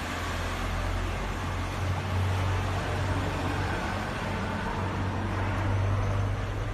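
Upright display freezer's bottom-mounted compressor and cooling fans running: a steady low hum over an even rush of air noise.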